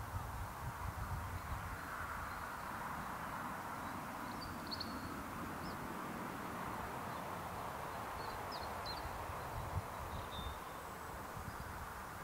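Distant Class 08 diesel shunter with its English Electric six-cylinder engine, a low steady drone as it approaches along the line. Small birds chirp briefly a few times, about four seconds in and again near nine seconds.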